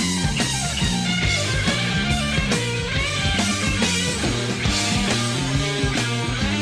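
Rock music with distorted electric guitar, bass and drums, playing steadily with a driving beat.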